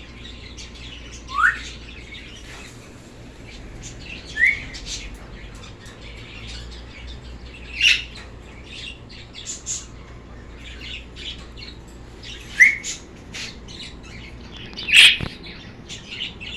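A group of kept birds chirping and chattering continuously, with five loud sharp calls, three of them short rising squawks, spread through it.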